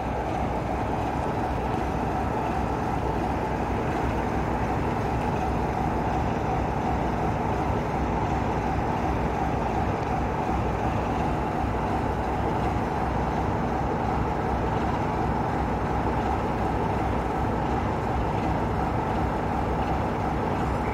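Class 33 diesel locomotive D6575's Sulzer eight-cylinder engine idling steadily, with no change in pitch or level.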